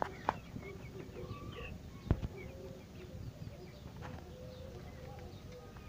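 Faint bird sounds in the background: a dove cooing in low held notes, with small high chirps. A few sharp clicks, the loudest about two seconds in.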